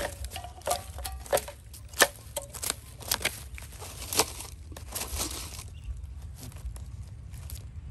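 A wooden stick poking and raking through a heap of household trash: plastic bags and wrappers crinkle and rustle, with irregular sharp clicks and knocks, busiest in the first five seconds and thinning out after that.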